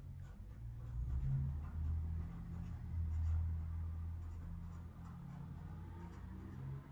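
Sharpie felt-tip marker scratching across paper as words are written in quick strokes, over a low rumble.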